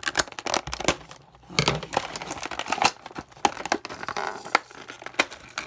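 Cardboard box and plastic toy packaging being handled as an action figure is worked out of it: a busy run of crinkling rustles, scrapes and sharp clicks.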